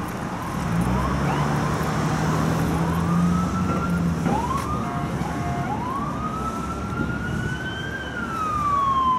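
Electronic police siren on an approaching unmarked Ford Crown Victoria. It gives a run of short rising yelps, then a brief steady horn-like tone about halfway, then one long wail that climbs, holds and falls away near the end. A low steady drone sits underneath during the first half.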